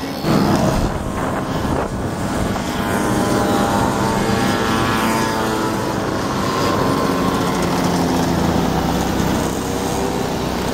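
A group of small two-stroke moped engines buzzing as the mopeds ride past, with one engine's pitch falling about three to five seconds in.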